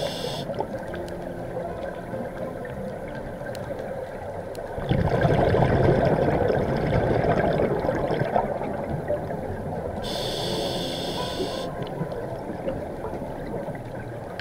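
Scuba diver breathing through a regulator underwater. A short hiss of inhaling comes just at the start and again about ten seconds in. Between them, about five seconds in, comes a long bubbling of exhaled air that lasts about four seconds.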